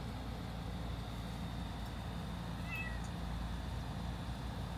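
A kitten gives a brief, faint, high-pitched mew about three seconds in, over a steady low background hum.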